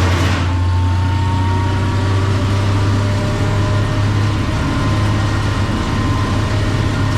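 Vermeer 1600A wood chipper's engine running steadily with a constant deep hum.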